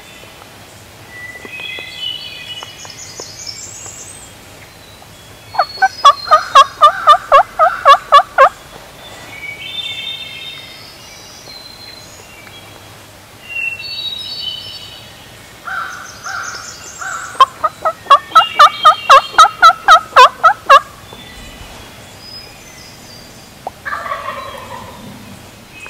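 Wild turkey gobbler (long beard) gobbling twice, each a loud run of rapid pulses lasting a few seconds, about ten seconds apart. Songbirds sing faintly in between.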